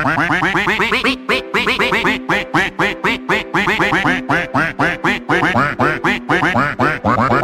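A quick run of cartoonish duck quacks, several a second, set to backing music as a meme sound effect.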